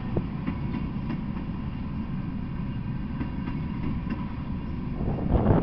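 Freight train of tank cars rolling past: a steady low rumble of steel wheels on the rails, with a couple of louder clacks near the end.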